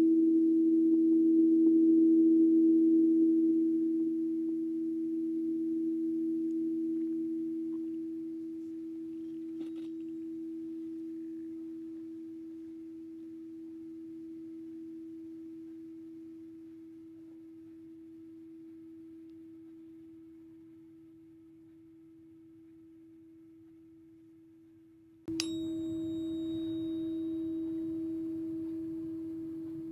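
A struck metal sound-healing instrument rings with one steady low tone that fades slowly over about twenty-five seconds. About twenty-five seconds in it is struck again with a sharp click and rings out loud once more.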